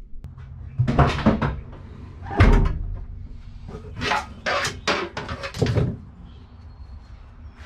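Knocks and clatter of fishing rods and gear being pulled out over a pickup truck's bed liner, heard from a camera lying in the bed, with one heavy thump about two and a half seconds in.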